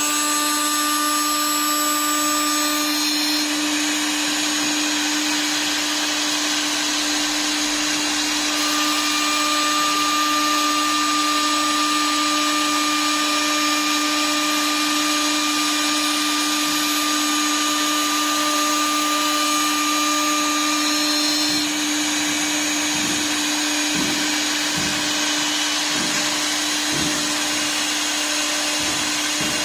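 A CNC router spindle on a wood lathe running at high speed with a steady whine over a hiss. In the second half, a series of short low thumps repeat about once a second.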